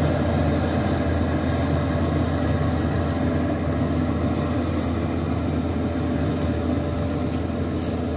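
Kubota rice combine harvester running steadily while it cuts and threshes, a continuous engine drone that grows slightly fainter as the machine moves off across the field.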